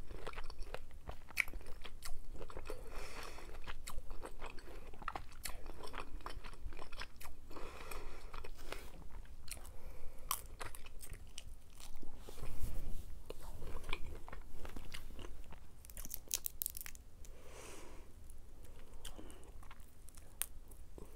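A person chewing cooked jumbo shrimp with the mouth close to the mic: soft wet mouth noises and irregular sharp clicks.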